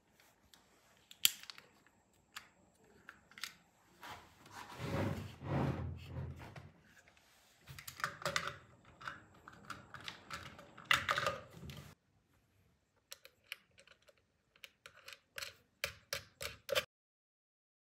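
Light clicks and taps of small metal clock-movement parts being handled and fitted to an epoxy-and-walnut clock face, with louder knocking and rubbing in the middle and a quick run of clicks near the end.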